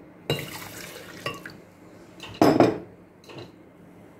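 Milk poured into an empty glass blender jug, splashing against the glass, with a few knocks of glassware being handled on a wooden table.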